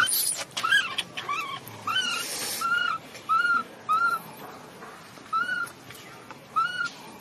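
Newborn macaque crying: a string of about nine short, high squeals, each rising then falling in pitch, with a longer pause after the middle.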